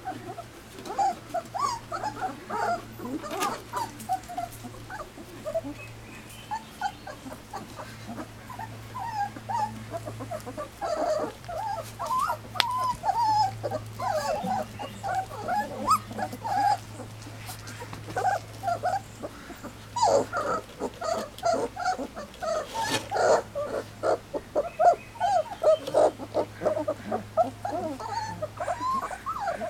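A litter of three-week-old standard poodle puppies whimpering. Many short, high, wavering calls overlap one another, and they grow busier and louder in the second half.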